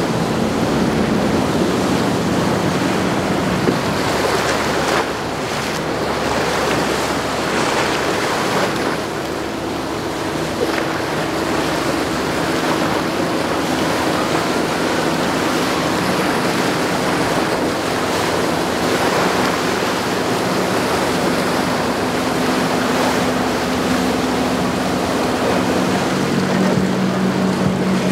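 Motorboats passing at speed: a steady rush of wake water and surf, with wind on the microphone, over the low hum of their engines. About two seconds before the end, a louder engine hum comes in from a center-console boat with twin Yamaha 150 outboards.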